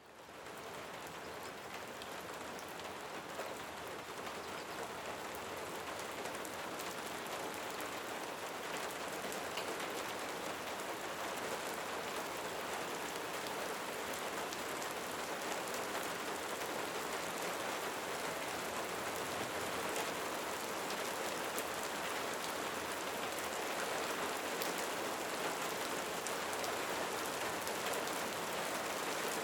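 Steady rain, with scattered individual drops ticking through the hiss; it fades in over the first second.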